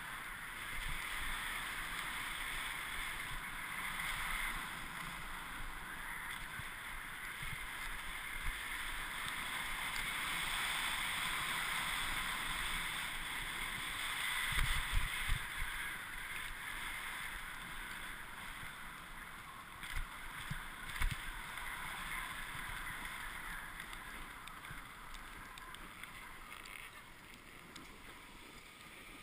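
Snowboard sliding and carving over groomed snow: a steady hiss and scrape of the board, with a few dull thumps about halfway through and again a little later, getting quieter near the end.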